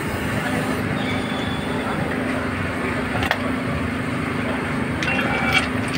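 Steady mechanical drone with an even low hum from running machinery, with one sharp click about three seconds in.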